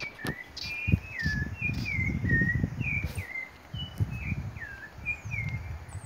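A bird calling over and over, a series of short chirps that slide downward in pitch, about two a second. Underneath, wind buffets the microphone in low gusts, with a knock about a second in.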